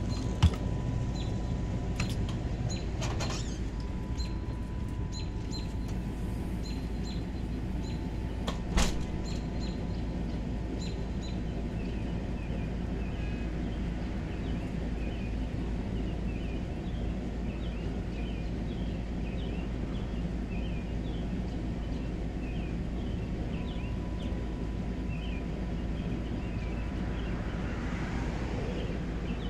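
Outdoor ambience from an unattended phone: a steady low hum with rapid, repeated high chirping, and sharp knocks just after the start and again about nine seconds in.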